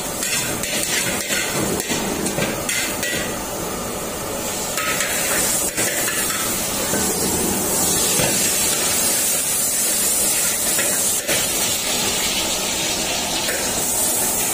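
Long-handled steel ladle scraping and knocking around a hot steel wok that still holds water, the water on the hot metal hissing into steam. From about five seconds in a steady high hiss takes over.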